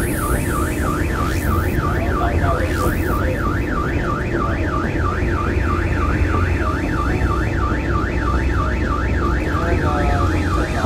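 A patrol ship's electronic siren warbles rapidly up and down, about three sweeps a second, without a break. Beneath it runs a steady low rumble and the hiss of the ship's water cannon spraying.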